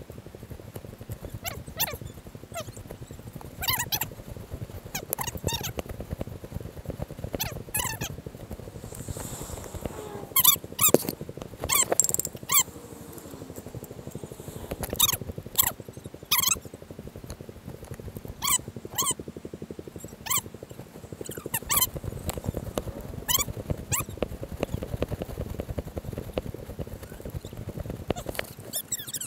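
Dry cornstalks and leaves rustling and crunching as people walk the maze path and push past them. Irregular sharp crackles, several a second at times, over a steady low background noise.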